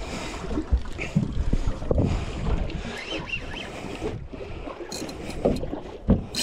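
Wind buffeting the microphone on a small boat at sea, with a few dull knocks.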